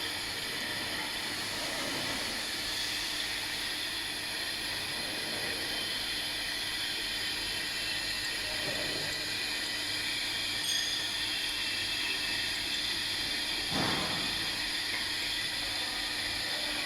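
Steady hiss of workshop background noise, with a couple of faint knocks of metal parts being handled while the piston pump is fitted back on the filler.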